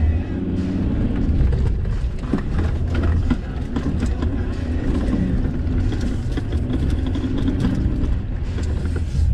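Off-road vehicle driving along a rough sandy dirt track, heard from inside the cabin: engine and tyre rumble with scattered knocks and rattles from the bumps.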